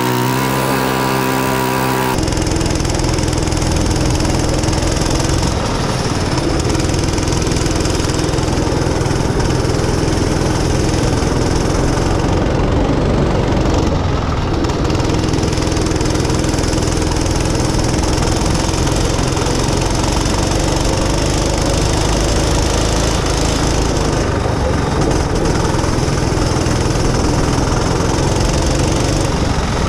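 Rental go-kart's small engine running steadily under way, with a hiss of wind and tyre noise on top. Music plays for about the first two seconds and then cuts off.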